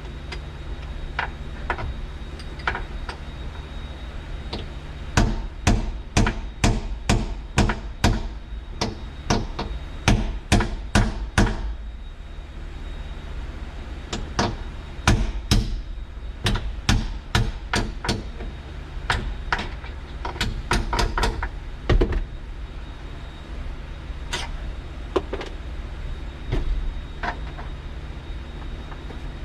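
Hammer strikes on a Peterbilt 359 cab door's piano hinge, working the old, worn hinge loose. The blows come about two a second in two long runs with a short pause between them, and a few lighter taps before and after.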